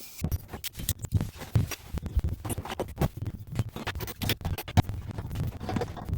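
Irregular scratching and light clicking, several a second, mixed with dull low thumps.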